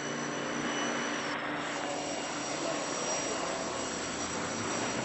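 Steady roar of city street noise, like traffic, with no clear events. A faint, steady high-pitched whine runs through it.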